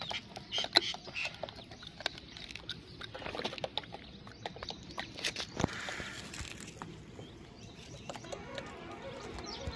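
Gray langurs crunching dry maize kernels and chickpeas: faint, irregular clicks and cracks.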